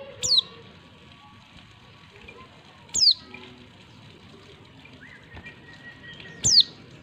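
Female white-eye (pleci) giving three short, sharp calls about three seconds apart, each sweeping steeply down in pitch. These are the female calls used as a lure to make male white-eyes answer and sing.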